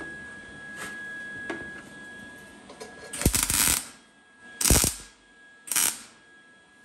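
Wire-feed (MIG) welder laying three short tack welds on thin rusty sheet steel, with the power turned down. Each burst is a crackling arc, starting about three seconds in, and each is shorter than the last.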